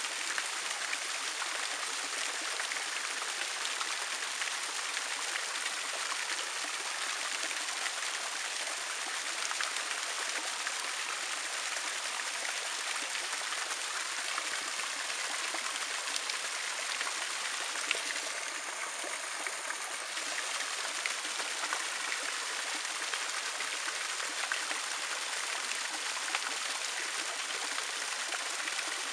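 Small waterfall of spring water pouring off a moss-covered travertine mound and splashing into a shallow pool below, a steady rush of falling water.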